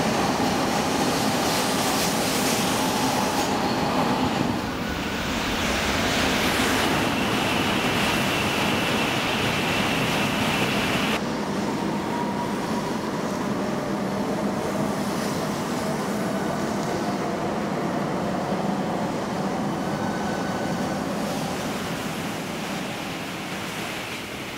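Hitachi Class 395 Javelin electric multiple units running through a station: a steady rumble of the train with a whine over it. A higher whine joins about seven seconds in and cuts off suddenly about eleven seconds in, and the sound fades near the end.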